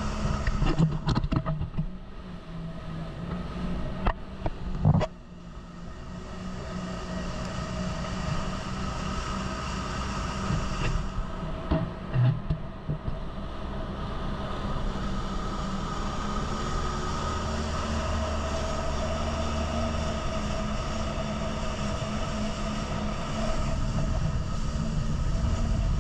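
Jet ski engine running steadily at speed, over a rush of wind and water. A few sudden louder knocks come in the first half as the hull hits the chop.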